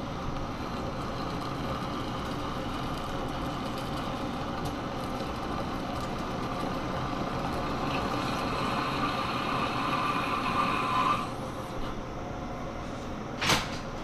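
Monarch lathe running with a tool cutting a steel GM wheel hub: a steady machine drone with a cutting whine that grows louder, then stops suddenly about eleven seconds in. A single sharp clunk comes near the end.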